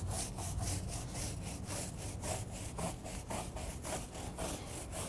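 Stiff-bristle tire brush scrubbing back and forth on the rubber sidewall of a muddy, cleaner-wet off-road tire: an even, rasping rhythm of about four strokes a second.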